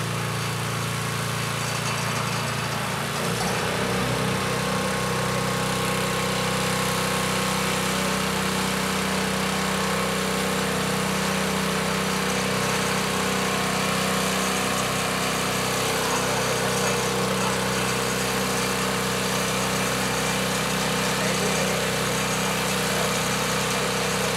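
An engine running steadily, its note deepening and gaining a low rumble about three and a half seconds in, with the hiss of a hose spraying water.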